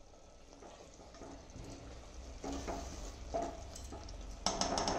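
A spatula stirring wet cooked moong dal and spinach in a metal pressure cooker: soft, scattered squelches, then a louder cluster of scrapes and clicks against the pot near the end.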